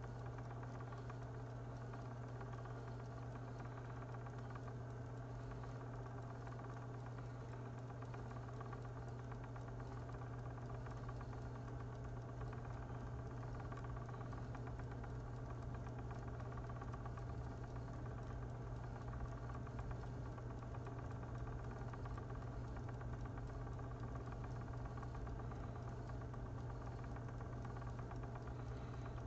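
Magpie electric spinning wheel running steadily, its motor and spinning flyer and bobbin making a steady low hum as yarn winds on.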